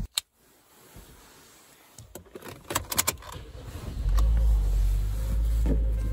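Sharp clicks of keys being handled inside a Toyota car, then about four seconds in a steady low rumble as the car runs.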